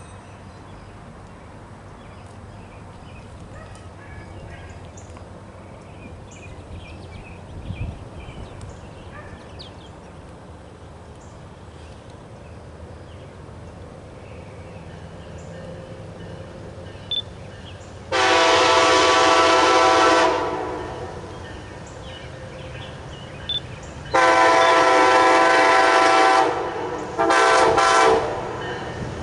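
Horn of an Amtrak SC-44 Charger locomotive, several tones sounding together as a chord, after a long stretch of faint outdoor background. It gives a long blast about two-thirds of the way in, then a second long blast a few seconds later, followed quickly by two short blasts near the end.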